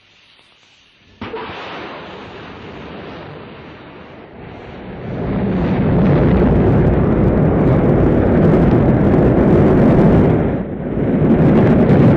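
Rocket launch roar: a deep, loud rumbling noise that starts abruptly about a second in and grows much louder about five seconds in, with a brief dip near the end.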